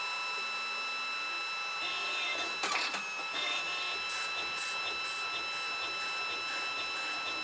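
CNC lathe running its program: a steady high-pitched machine whine with bursts of cutting noise, a sharp knock about three seconds in, and a regular high pulsing about twice a second in the second half.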